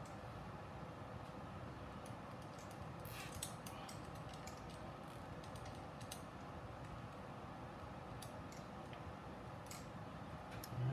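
Faint scattered plastic clicks and ticks of zip ties being threaded and pulled tight around a receiver on a racing drone frame, over a steady background hum.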